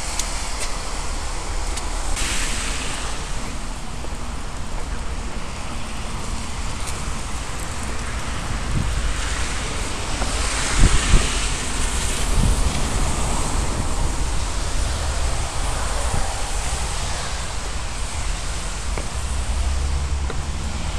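Steady wet-weather street noise: a hiss of rain and traffic on wet roads, with wind rumbling on the microphone. A couple of low knocks about eleven seconds in.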